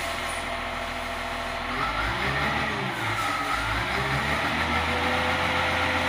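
Caterpillar 950H wheel loader's C7 diesel engine running unsteadily, its revs surging up and down on their own with a vibrating sound. This is the hunting, unstable acceleration that the owner traces to a faulty sensor.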